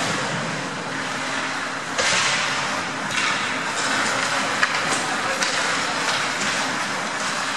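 Ice hockey play on a rink: a steady hiss of skate blades scraping and carving the ice, with scattered sharp clicks of sticks and puck. The scraping grows louder about two seconds in.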